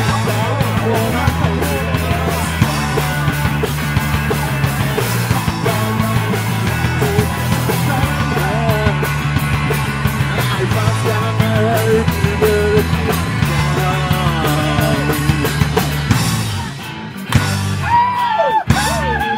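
Live pop-punk band playing: two electric guitars, electric bass and drums, with singing and shouted vocals in Swedish. Near the end the drums stop for a moment and the music thins to a few held, bending notes.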